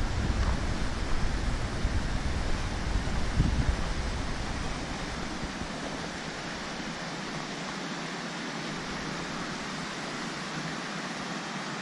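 Steady rush of a mountain creek, with wind buffeting the microphone. The low wind rumble drops away about halfway through, leaving the even rush of water.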